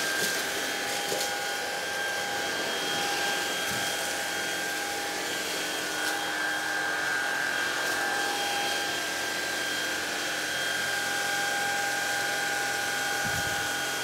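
Greenote GSC50 cordless stick vacuum running steadily, a constant motor whine over the rush of air, while its motorised floor head is pushed over a hard floor.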